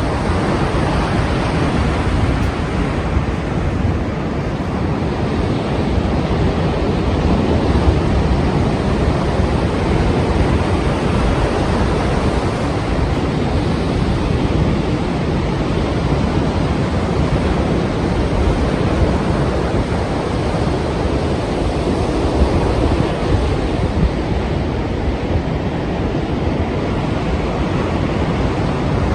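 Heavy sea surf: a continuous roar of breaking waves, swelling and easing slowly, with wind mixed in.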